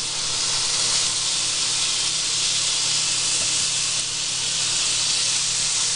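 Raw bacon strips sizzling on the hot ridged plate of a George Foreman electric contact grill as they are laid down: a steady hiss.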